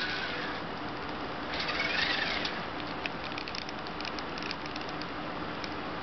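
Wowee Tribot toy robot's small electric motors and gears whirring as it moves under remote control, with scattered light clicks and a louder swell about two seconds in.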